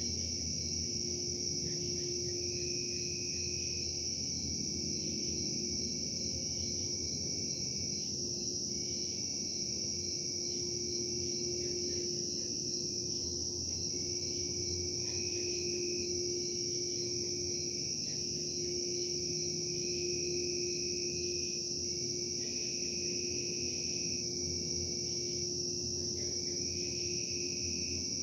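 A steady high chorus of crickets over a constant low machinery hum with a steady droning tone. The hum is the industrial production noise being recorded as a disturbance. A few shorter, higher tones come and go over it.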